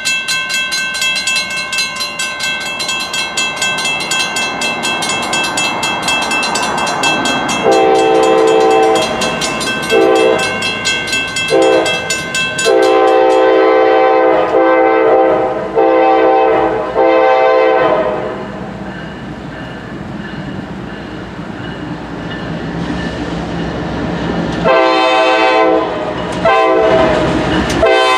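Railroad crossing's mechanical bells ringing rapidly as the signals warn, then a diesel locomotive's air horn sounding a series of long and short blasts for the crossing. The train's rumble grows, and two more horn blasts come near the end as the locomotive reaches the crossing.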